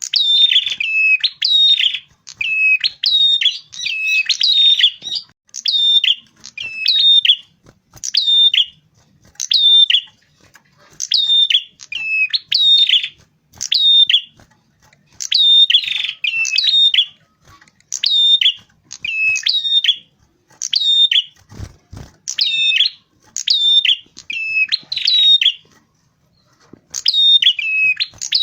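Prenjak kepala merah, a small cisticolid warbler, calling loudly and insistently: a rapid run of short, repeated chirp phrases, each a quick sharp note dropping to a lower one, with brief pauses between groups. A single low thump comes in about two-thirds of the way through.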